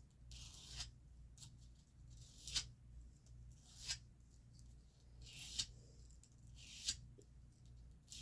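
Steel knife blade being drawn across a sharpener in short, faint scraping strokes, about one every second or so.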